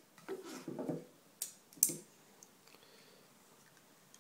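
Handling noise from a white plastic Apple AirPort Express and its wrapping being picked up and turned in the hand: a short soft rustle, then two sharp clicks about half a second apart.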